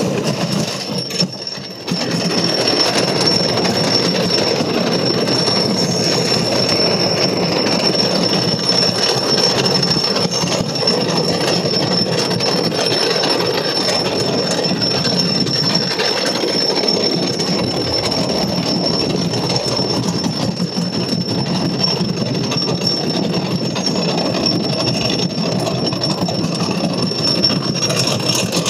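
Switchback wooden roller coaster train running on its track: a steady loud rumbling roar with a thin high whine held over it, dipping briefly about a second in.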